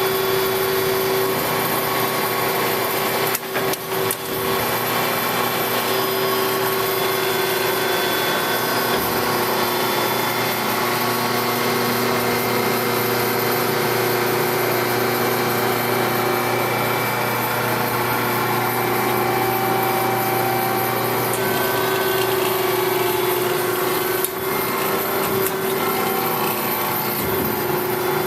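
A 10-horsepower HEM double-column automatic horizontal bandsaw running steadily under power, its blade sawing through stock with a constant hum. There are short dips in the sound about three to four seconds in and again near the end.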